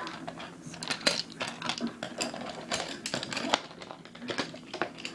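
Pencils and markers clicking and clattering as they are handled and set down on a wooden tabletop: a quick, irregular run of light taps, a few louder knocks among them.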